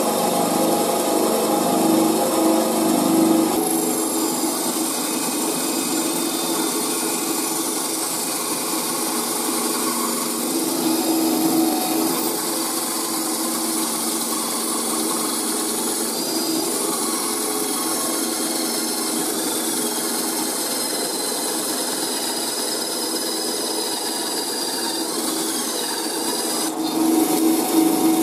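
Small Silverline benchtop bandsaw running with a steady motor hum while its blade cuts through a block of wood.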